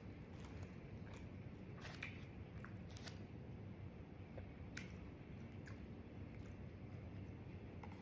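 Faint chewing of a mouthful of loaded baked potato, with scattered small wet clicks and smacks over low steady background noise.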